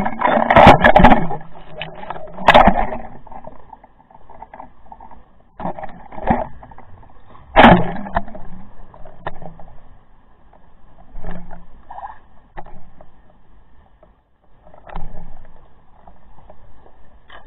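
Irregular rushes of water noise and knocks picked up by an underwater camera housing as it swings and bumps on its line, with one sharp knock a little under eight seconds in. A faint steady high whine runs underneath.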